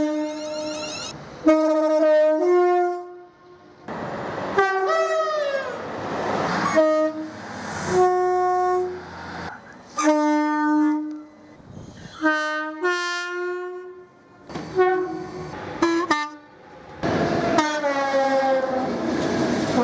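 A rapid series of train horn blasts from UK trains, mostly two-tone horns sounding pairs of notes, with some blasts dropping in pitch as the train passes. Many blasts stop abruptly, with rail clatter between them.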